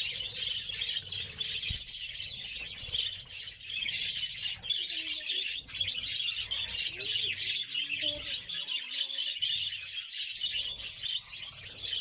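A colony of budgerigars chattering and chirping all at once, a steady, dense warble of many birds.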